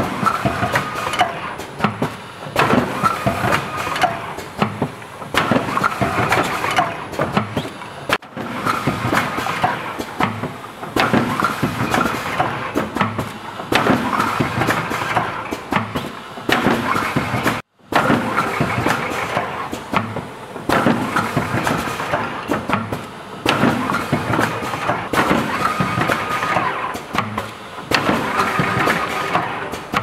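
Three-auger coffee filling machine running: its cup dispenser, auger fillers and cam-driven linkages clatter in a repeating cycle. The sound cuts out suddenly for a moment a little past halfway.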